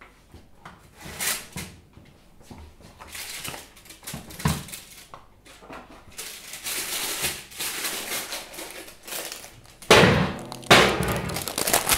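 Oven and baking-tray handling: a few knocks, the loudest about four and a half seconds in, then baking paper crinkling and rustling as the sheet of baked sponge on it is lifted, loudest near the end.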